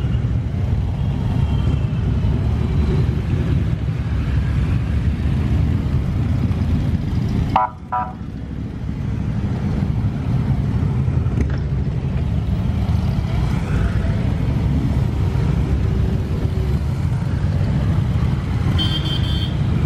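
A procession of motorcycles, mostly big touring bikes, riding past one after another, many engines running together in a steady low rumble. There is a brief drop in the sound about eight seconds in, and short higher tones near the end.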